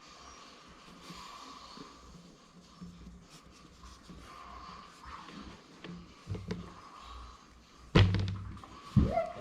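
Faint small handling noises, then a sharp thump about eight seconds in, followed just before the end by a dog starting to vocalize.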